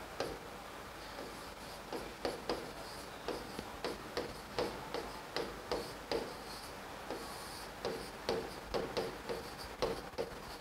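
Chalk writing on a blackboard: a run of short taps and scratches, a couple to each second, as each stroke is laid down, starting about two seconds in.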